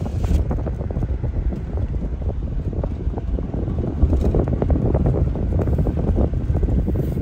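Inside a car driving on an unpaved dirt road: a steady low rumble of tyres and road with frequent small knocks and rattles.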